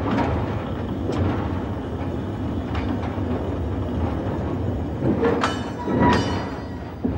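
A railway train rolling on the rails: a steady rumble with scattered knocks, then two sharp metallic clanks that ring briefly, about five and six seconds in.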